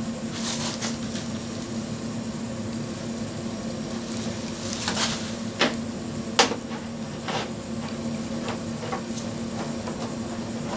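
Clear plastic sheeting crinkling and rustling as it is handled and knelt on, with a few sharper crackles in the middle. Under it runs a steady hum.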